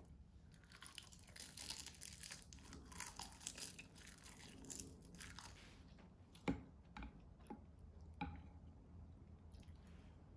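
Close-up chewing of a mouthful of rice wrapped in crisp roasted seaweed (gim), crunching steadily for the first half. It is followed by a few sharp knocks of a wooden spoon against an earthenware pot as soup is scooped.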